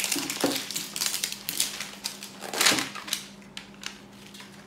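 Plastic toy capsules and packaging being handled: a run of light clicks and rustles, with a louder rustle about two and a half seconds in.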